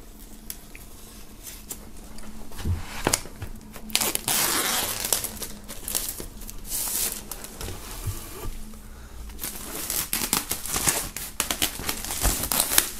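Plastic shrink-wrap being cut open and pulled off a vinyl record sleeve: crinkling and tearing in irregular bursts, busier from a few seconds in.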